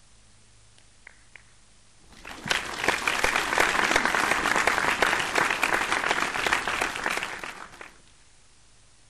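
Crowd applause, a stock sound effect: it swells up about two seconds in, holds for about five seconds and fades out.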